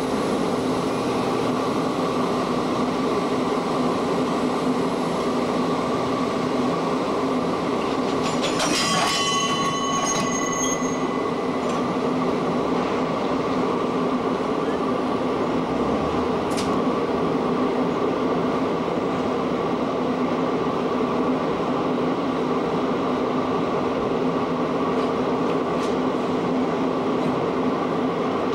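A rake of freight hopper wagons being shunted, rolling past with a steady rumble. About nine seconds in there is a brief high-pitched squeal of wheels on the rails.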